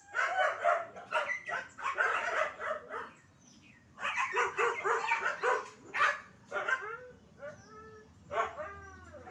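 A dog vocalizing: two bouts of rapid barks and yips, then several separate whines that rise and fall in pitch near the end.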